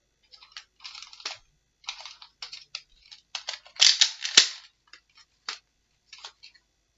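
Plastic clicking and clacking of a Nerf blaster being handled and worked, with a cluster of louder sharp snaps about four seconds in.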